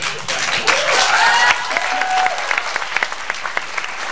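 Audience applauding, a dense patter of many hands clapping, with a few voices rising briefly over it about a second in.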